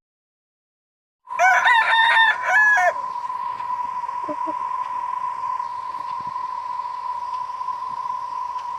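Rooster crowing sound effect, one loud cock-a-doodle-doo of about a second and a half, starting after about a second of silence. A steady high beep tone runs under it and on after it.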